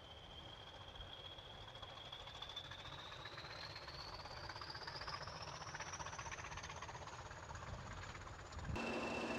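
Class 20 diesel locomotive, English Electric 8SVT engine, working under power as it pulls a train away, with a whistle rising steadily in pitch as it accelerates. Near the end the sound cuts abruptly to a louder, steady engine hum.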